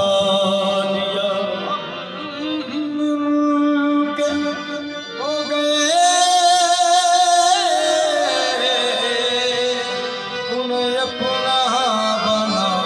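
Qawwali music: a man singing long, ornamented held notes over a harmonium's sustained chords.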